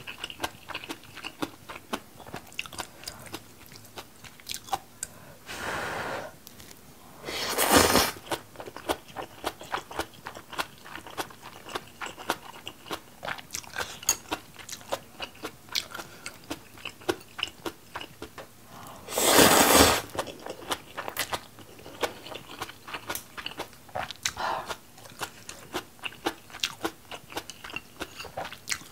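Close-miked chewing and crunching of cabbage kimchi, many small crisp crunches and wet mouth clicks following one another steadily. Two louder noisy sounds about a second long cut in, one some eight seconds in and one at about twenty seconds.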